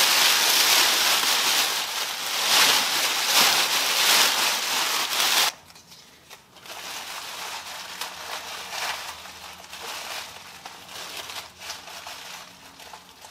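Thin black plastic trash bag rustling and crinkling as it is pulled and gathered by hand. Loud for the first five seconds or so, then it drops suddenly to softer, scattered crinkles.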